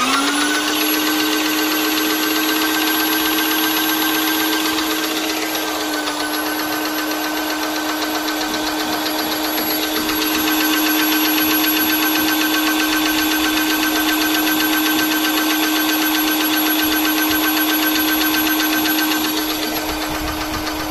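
Vonder MPA1010 airless paint sprayer's pump switched on: it starts abruptly, rises in pitch within a fraction of a second, then runs with a steady hum over a fast buzzing clatter. It grows a little louder about ten seconds in and eases slightly near the end.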